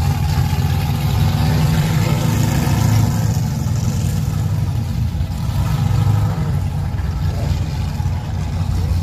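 Ford XY Falcon GT's 351 V8 running at low revs, a deep, loud steady rumble that swells slightly a couple of times.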